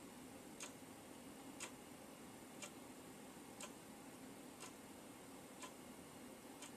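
A clock ticking faintly, once a second, against near silence.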